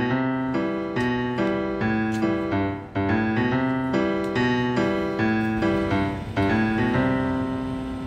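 Background piano music: soft electric-piano chords struck about every half second, ending on a held chord that fades near the end.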